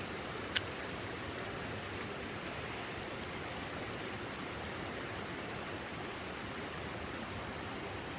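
Steady rushing of a mountain stream, with a single sharp click about half a second in.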